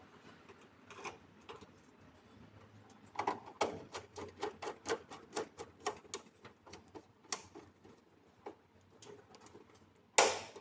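A quick run of small clicks, about three or four a second, then sparser ticks and one sharp snap near the end: hand work on the fuse holder terminals of a PV combiner box while the red cables are fitted.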